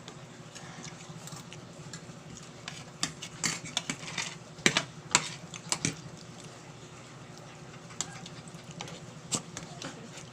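Spoon and fork clinking and scraping against a plate during a meal of noodles: scattered sharp clicks, busiest a few seconds in.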